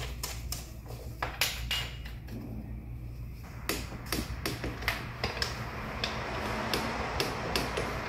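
Ratchet wrench clicking in short irregular runs as the front brake caliper mounting bolts are tightened, over a steady low hum.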